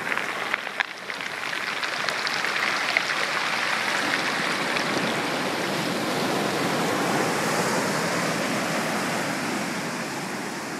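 Ocean surf washing over a pebble and cobble beach, the stones tumbling and clacking against each other in the moving water: many small sharp clicks over a steady rush of water, the clicks thickest in the first half.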